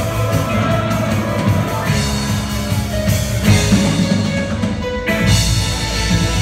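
A live band plays an upbeat rock-and-roll number on drum kit, bass and guitars, heard through the hall. About five seconds in the sound turns heavier in the bass.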